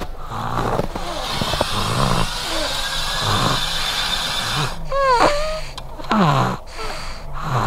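A sleeping toddler snoring, over a steady rushing noise, with a brief voice-like call about five seconds in.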